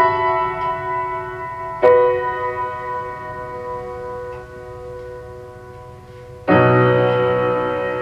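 Music played back through car audio speakers: piano-like keyboard notes struck and left to ring out and fade. A fuller, louder chord comes in about six and a half seconds in.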